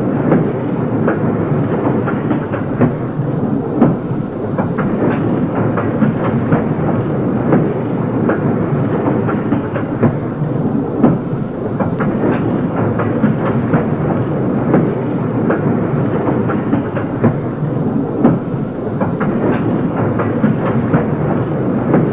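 Railway freight wagons rolling past, a continuous rumble broken by frequent irregular clanks and knocks from the wheels and couplings.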